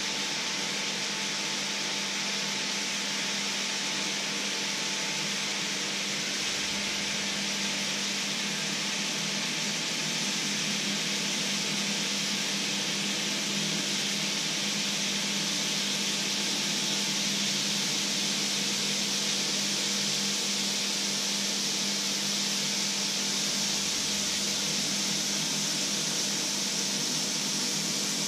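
Fat sizzling steadily in a black steel frying pan on the stove, a continuous hiss that grows slightly louder as the liquid cooks away.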